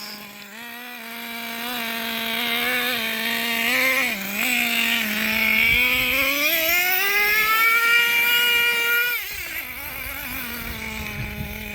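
Traxxas T-Maxx RC truck's small nitro engine running at a steady buzzing pitch, then rising to about twice the pitch six to seven seconds in as the throttle opens. It holds high for a couple of seconds and falls back about nine seconds in.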